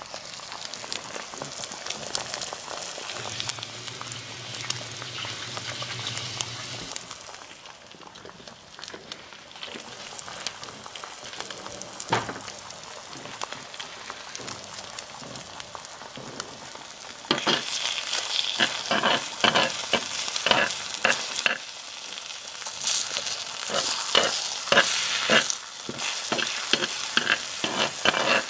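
Egg sizzling steadily in a mini cast iron skillet. A little over halfway through, the sizzle gets louder and a spoon starts scraping and clicking against the pan, over and over, as the egg is broken up and stirred.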